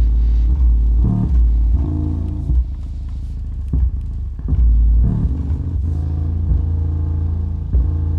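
Magnat Bull Power Doubleflex 210 subwoofer box with twin 10-inch woofers playing bass-heavy music loud, the deep bass notes far louder than the rest of the music.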